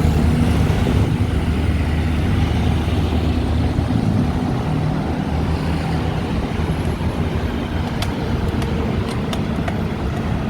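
Steady traffic noise on a busy multi-lane road, with a heavy vehicle's engine humming low and strongest in the first half, then fading into the general road noise. A few light clicks near the end.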